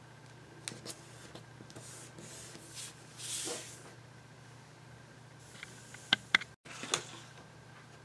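Paper handling: a layered cardstock panel pressed together and moved aside, with soft rustles and a brief swish about three seconds in, then a few light clicks and taps near the end.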